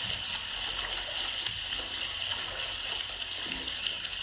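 Lake water splashing as a person runs through the shallows and dives in.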